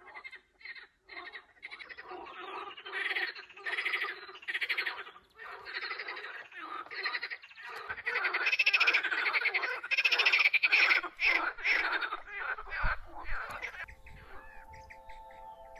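A chorus of frogs croaking from the swamp: overlapping runs of rapid rattling calls that grow louder through the middle. Steady music tones come in near the end.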